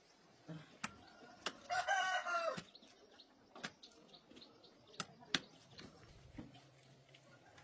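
A bird calling once for about a second, about two seconds in, amid scattered sharp clicks and knocks.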